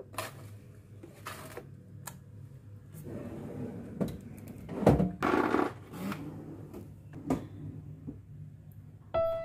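Plastic knocks and clicks as a packed food tray is slid into a refrigerator's plastic freezer compartment and its flap is handled, with a longer scraping slide about five seconds in. A steady low hum runs underneath.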